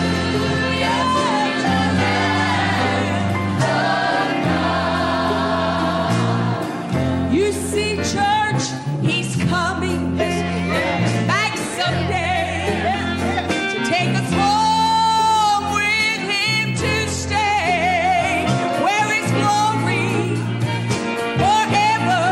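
Gospel choir singing with a band, a female lead vocalist singing out over the choir and holding long notes with vibrato.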